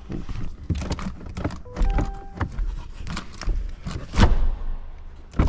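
Clunks and knocks from working a pickup truck's jammed door and latch, the loudest about four seconds in and another near the end. A short steady electronic tone sounds about two seconds in.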